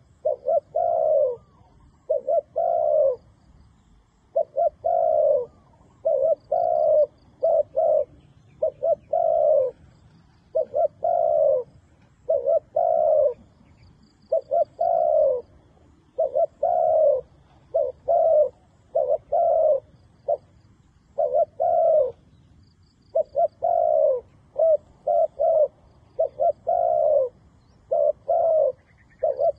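Spotted dove cooing over and over. The low coos come in repeating phrases of short and longer notes, about one phrase every two seconds, with no break.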